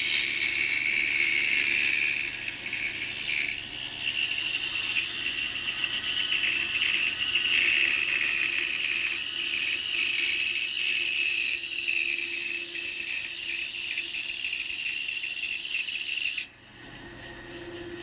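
Pegas scroll saw running and cutting through a thick wooden box blank, a steady high-pitched buzz from the reciprocating blade. The sound cuts off suddenly near the end.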